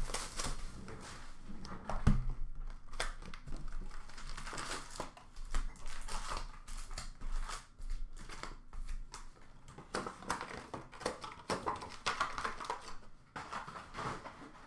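An Upper Deck hockey card box being opened and its wrapped card packs pulled out and handled: irregular crinkling and rustling of the pack wrappers and cardboard, with a sharp knock about two seconds in.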